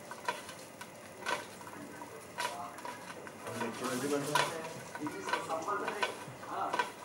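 Metal utensil knocking and scraping against a pan about once a second while French fries sizzle in hot oil.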